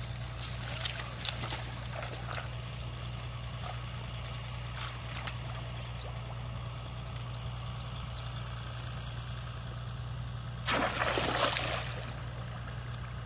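Water splashing for about a second near the end as a person wades through a shallow, muddy pond, with a few faint steps in wet mud in the first seconds, all over a steady low hum.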